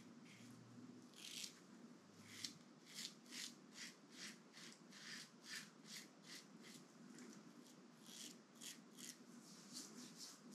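Razorock SS Lupo DC double-edge safety razor cutting two-day stubble under lather in short, repeated strokes, about two or three a second: the faint scratching of whiskers being cut on the first pass.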